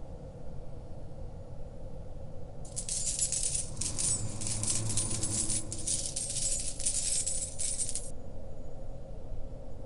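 A pile of metal coins shifting and jingling with many small clinks for about five seconds, starting about three seconds in, over a steady deep rumble.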